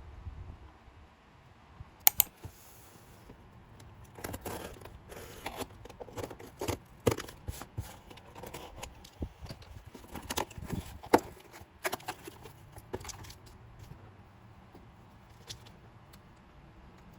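K-pop album packaging handled and opened by hand: a sharp double click about two seconds in, then irregular crinkling, tearing and tapping of plastic wrap, paper and cardboard, fading off near the end.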